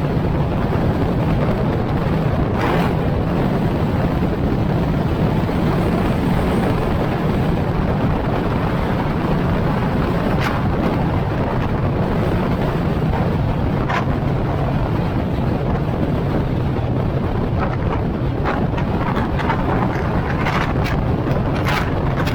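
Wind buffeting the microphone over a steady low rumble, with a few brief sharp knocks that come more often near the end.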